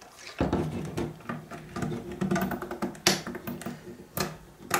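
Hard plastic case of a Texas Instruments Speak & Spell being handled and pried at its seam, with sharp plastic clicks three times in the second half. A low, steady buzz runs from about half a second in until the clicks begin.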